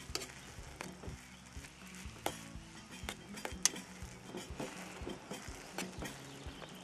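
A metal spoon stirring noodles in an aluminium camping pot, clinking and scraping irregularly against the pot's sides, the loudest clink about three and a half seconds in, over a faint steady hiss.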